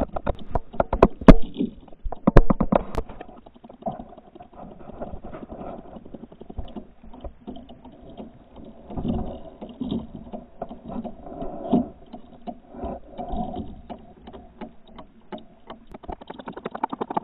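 Shallow bathwater sloshing and splashing around a shiba inu's legs as it wades after small robot fish, heard muffled through a camera at the waterline and slowed down. A run of sharp ticks comes in the first few seconds, then uneven low sloshing with occasional dull thuds.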